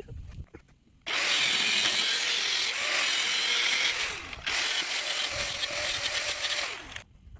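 A handheld power tool runs hard, likely grinding or sanding metal, with a loud, even hiss. It starts abruptly about a second in, eases off briefly past the middle, and cuts off near the end as the motor winds down.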